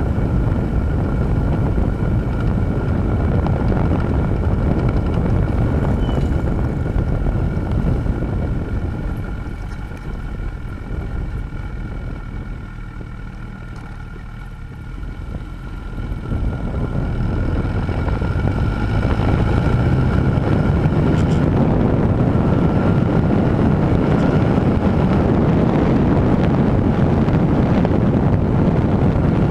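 Wind rushing over the microphone mixed with the Honda CB1000R's inline-four engine while riding along. The noise drops for several seconds around the middle as the bike slows for a bend, then rises again as it picks up speed.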